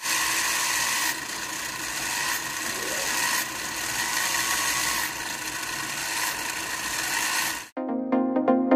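Small BO gear motor driving a homemade plastic-gear differential and rear axle: a steady whirring with gear whine, its loudness stepping up and down a few times. Near the end it cuts off abruptly and electronic music with a beat starts.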